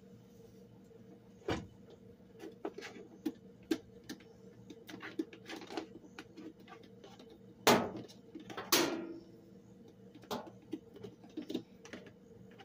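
Clinks and knocks of a crock pot and its lid being handled and set down, with two louder clunks close together about eight seconds in, the second ringing briefly. A faint steady hum runs underneath.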